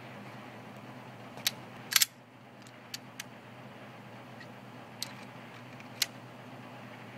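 Semi-automatic pistol being handled while the shooter loads and makes ready: a series of sharp metallic clicks, the loudest a quick double clack about two seconds in, like the slide being racked, with single clicks before and after.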